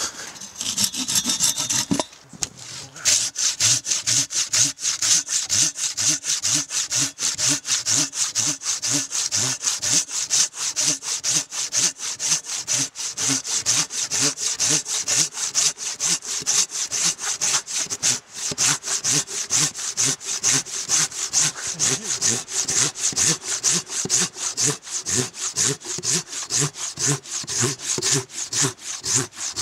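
Large folding hand saw cutting through a log with steady, rapid back-and-forth strokes, the teeth rasping through bark and wood. There is a brief pause about two seconds in.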